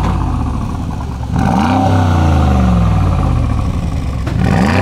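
Mercedes-AMG G63's twin-turbo V8 revved twice while stationary, about a second and a half in and again near the end. It sounds through a reworked rear exhaust section with custom mufflers, the factory exhaust valves and Brabus side-exit tips. Each rev climbs quickly and then falls away slowly.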